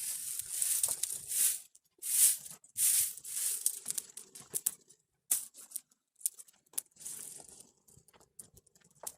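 Dry kindling and brushwood rustling and snapping as it is handled and fed into a wood-fired bread oven, in dense bursts for about four seconds. Then come scattered sharp cracks, the loudest near the end.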